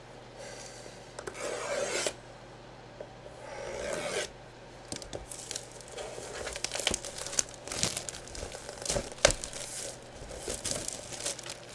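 Plastic shrink-wrap being slit with a blade and torn off a sealed cardboard box: two long tearing rips in the first four seconds, then crinkling and rustling of the plastic as it is pulled away.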